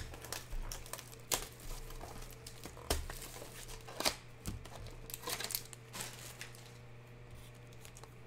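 Panini Prizm basketball card box and foil pack being handled and opened: crinkling and tearing of the packaging in scattered sharp crackles that thin out after about six seconds.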